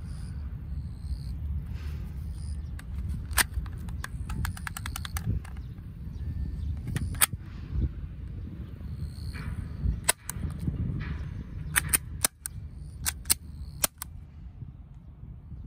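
Academy M9 airsoft BB pistol firing: a string of sharp snapping shots, some single and some in quick pairs, with a fast run of about eight shots around four and a half seconds in.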